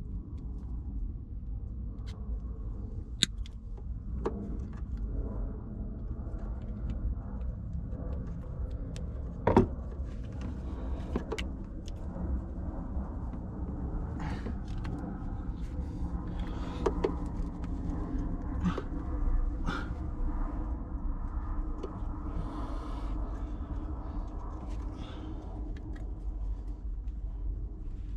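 Scattered sharp clicks and knocks of hand tools and metal parts being handled during work on a car's handbrake and brake lines, over a steady low rumble.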